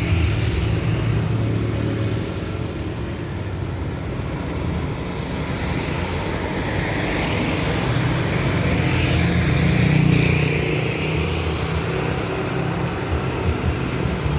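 Motor vehicle and road traffic noise: a steady low rumble that swells and peaks about ten seconds in, then eases.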